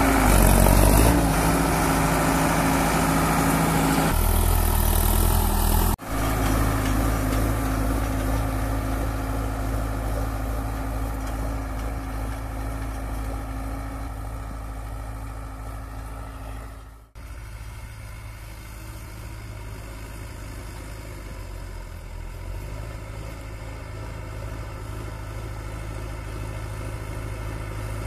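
Sonalika Tiger tractor's diesel engine running steadily under load as it pulls an 11-tine cultivator through hard, dry soil. It is loud and close at first, then fainter after abrupt changes about 6 and 17 seconds in.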